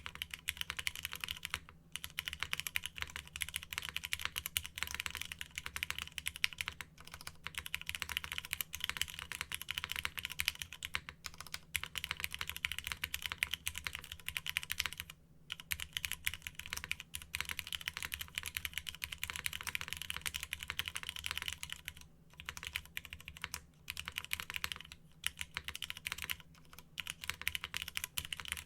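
Continuous typing on a Paramount Keebs Plaque80 mechanical keyboard with an aluminium plate, Cherry MX Red linear switches and Aifei R2 keycaps: a fast, unbroken run of key clacks with a few brief pauses.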